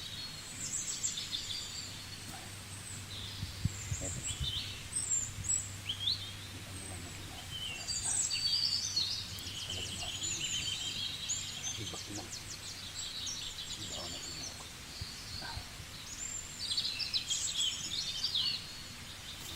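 Small wild birds chirping repeatedly with short high calls, busiest about halfway through and again near the end, over a steady low background hum.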